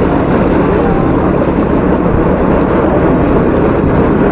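Loud, steady rushing of fast-flowing floodwater, with a low hum and a crowd's voices faint beneath it.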